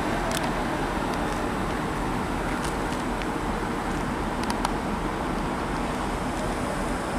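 A GWR Class 387 Electrostar electric multiple unit moving past close by: a steady rumble of wheels on rail with a few faint clicks.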